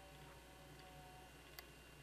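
Near silence: faint steady background hiss, with a single sharp click about one and a half seconds in.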